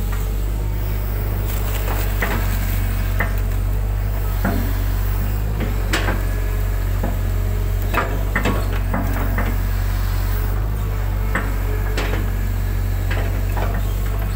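Hitachi excavator's diesel engine running steadily with a low hum, heard from the operator's cab, with about a dozen sharp knocks and clunks from the arm and bucket at uneven intervals as the machine digs and dumps.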